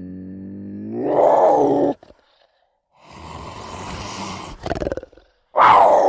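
A big cat's calls, spliced from separate clips: a sustained low growl swells louder and stops abruptly about two seconds in. After a second of silence comes a hissing, rasping call with a quick rattling stutter, and near the end a loud yowl that starts high and slides down in pitch.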